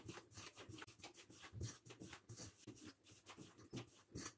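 Faint, irregular rubbing and rustling of a hand mixing dry gram flour, rice flour and spice powders in a stainless steel bowl.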